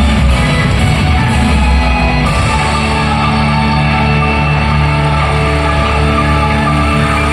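Loud rock music played over a PA; about two seconds in it settles into one long held chord that rings on, the close of the song.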